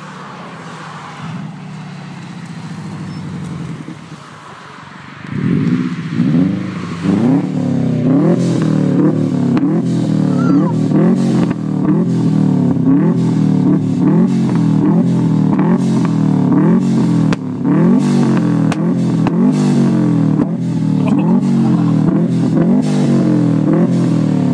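Subaru Impreza's turbocharged flat-four engine running at low revs for the first few seconds. From about five seconds in it is revved over and over in quick rising blips, about one a second, with sharp bangs and pops from the exhaust: an anti-lag system firing.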